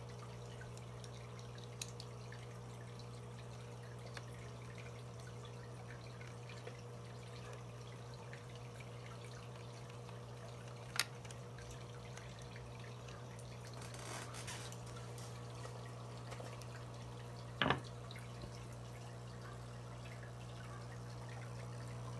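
Quiet room tone: a steady low hum with a few small sharp clicks, the clearest about eleven seconds in and again near eighteen seconds in, and a brief rustle in between.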